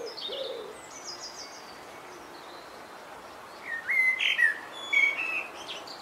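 Small songbirds singing outdoors: a quick run of high chirps right at the start, then a louder phrase of short whistled notes that jump in pitch, from about four seconds in to near the end.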